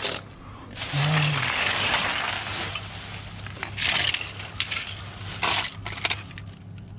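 Plastic bin bags rustling and crinkling as gloved hands rummage through them, longest about a second in, with light clinks of small toy cars being picked out and set down on concrete.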